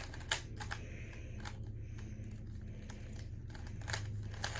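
Plastic twisty puzzle being turned quickly by hand during a speedsolve: a run of irregular sharp clicks and clacks of the layers over a steady low hum.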